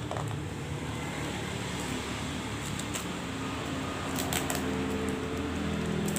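Steady low hum of room background noise, with a few light clicks of packaging being handled, about three seconds in and again a little over four seconds in.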